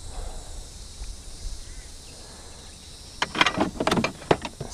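A steady high insect drone throughout; about three seconds in, a quick run of loud splashes and knocks as a hooked fish thrashes at the surface beside the canoe.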